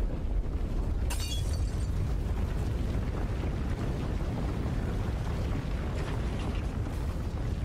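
Deep, continuous rumbling, an earthquake-destruction sound effect for the Earth breaking apart. A short crackling burst comes about a second in and a fainter one about six seconds in.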